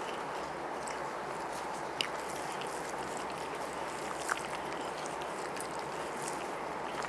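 Steady background hiss with a few faint clicks and smacks of two people eating chicken biryani by hand off banana leaves, clearest about two seconds in and again past four seconds.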